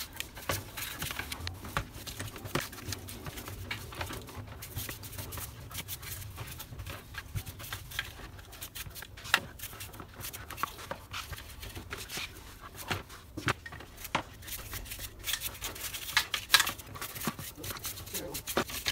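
A small stiff brush scrubbing the plastic and metal parts of an electric car door lock in a glass dish of cleaning solvent: a scratchy brushing sound with scattered clicks and taps as the parts knock against the dish, and a few sharper knocks.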